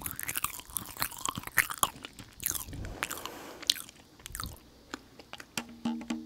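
Close-miked chewing of a soft, chewy dried-date sweet, with sticky wet mouth clicks and small crunches. It is busiest in the first half and grows fainter toward the end.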